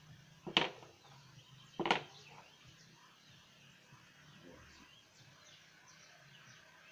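Two sharp knocks of chess pieces being set down on the board, about a second and a half apart, with faint bird chirps throughout.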